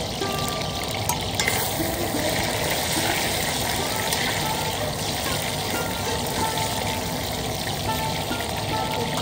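Food frying in a pan with a steady sizzle, over faint background music.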